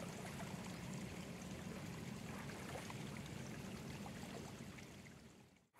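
Small stream running steadily, a soft even rush of water, which fades out near the end.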